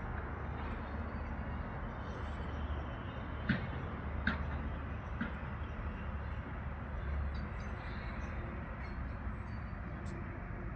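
Steady construction-site noise with a low rumble, broken by three short knocks or clanks near the middle.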